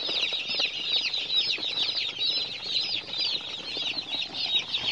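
A flock of dozens of newly hatched broiler chicks peeping nonstop, many short, high, falling peeps overlapping into a dense chorus.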